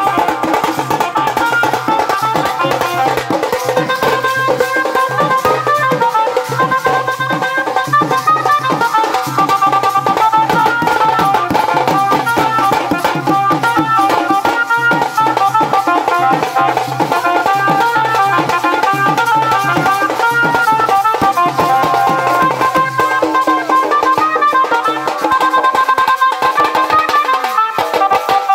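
Village wedding band music: dhol and tasha drums beating a fast, dense rhythm under an amplified melody played through horn loudspeakers.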